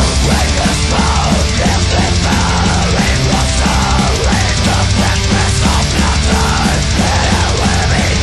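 Loud heavy rock music playing steadily, with a strong bass and a dense full-band mix.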